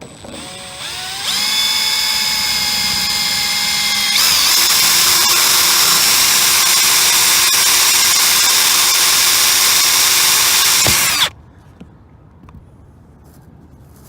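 Electric drill spinning up and running with a steady high whine, drilling holes for pop rivets in the detector's mounting bracket. About four seconds in, its pitch shifts and it gets louder; it stops suddenly about three seconds before the end.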